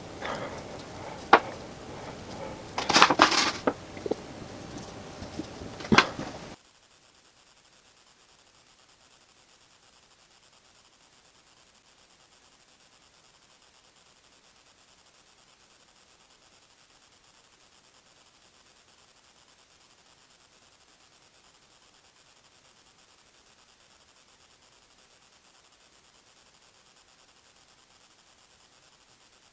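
A brush scraping and rubbing sealant into the lining of a small sheet-metal forge body, with a few sharp knocks. After about six seconds it cuts off to a faint steady hiss.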